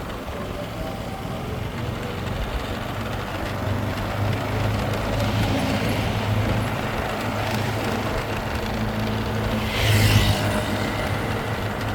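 Motorcycle riding along a road with traffic: steady engine and road noise that grows a little louder, with a short loud hiss about ten seconds in.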